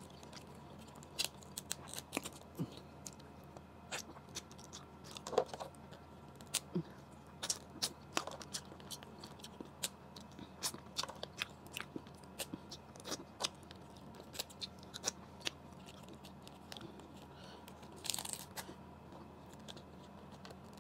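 Cooked blue crab shell cracked, snapped and pulled apart by hand, giving irregular sharp cracks and crunches, with a longer crackle near the end, mixed with chewing.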